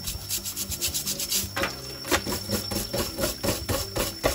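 Dish brush scrubbing a crayfish's shell: a quick, irregular run of rasping strokes.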